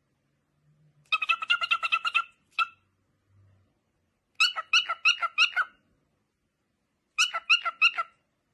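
Cockatiel calling in quick runs of short, sharp repeated notes: three runs of about a second each and one lone note, with pauses between.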